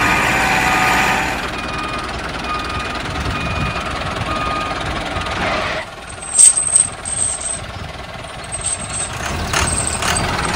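Tractor engine running, with a regular series of short beeps like a reversing alarm. About six seconds in, a loud clatter of sharp knocks.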